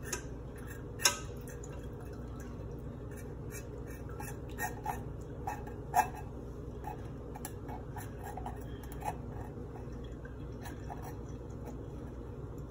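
Stout wort dripping and trickling through a mesh strainer and funnel into a glass jug: scattered small drip ticks, with two sharper clicks about a second in and about six seconds in, over a steady low hum.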